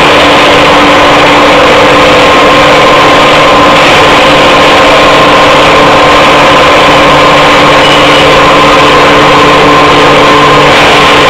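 Steel rebar induction heating line running with its motor-driven feed rollers: a loud, steady machine hum with several steady tones.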